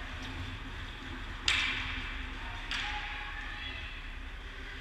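Two sharp cracks of a hockey puck, struck by a stick or hitting the boards, in an ice arena. The first, about a second and a half in, is loud and rings briefly; the second, about a second later, is weaker. A steady low rink background runs underneath.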